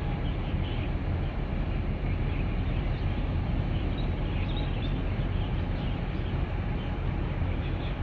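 Steady low rumble and rushing noise of a large 4,957-TEU container ship under way as it passes close by, with a few faint high chirps about halfway through.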